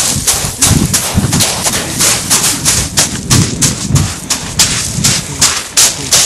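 Running footsteps crunching on shingle pebbles, about four crunches a second, with dull thumps from the jolting handheld camera beneath them.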